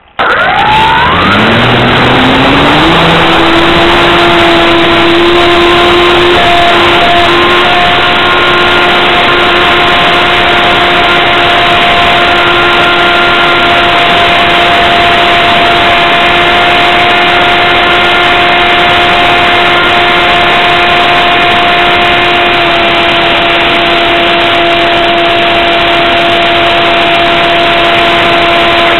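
RC plane's motor and propeller heard from the onboard camera, loud and close: it starts suddenly and winds up in pitch over about three seconds for the takeoff run, then holds a steady, even drone through the climb and flight.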